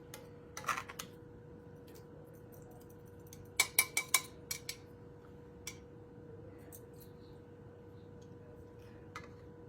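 A serving utensil clinking and scraping against dishes as food is dished out: a few clicks about a second in, then a quick run of four sharp clinks about halfway through and a few lighter taps after.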